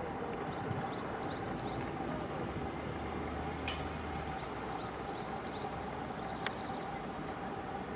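Class 745 electric multiple unit, a Stadler FLIRT, approaching: a steady low rumble with a faint constant hum. Faint high chirps sit over it, and two sharp clicks come about halfway and near the end.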